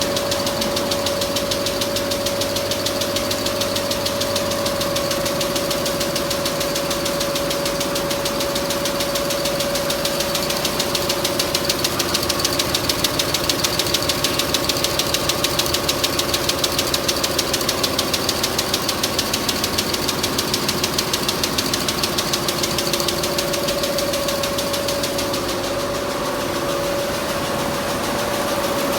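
Richpeace multi-needle quilting machine running at speed, its needle bar stitching in a rapid, even clatter over a steady motor hum.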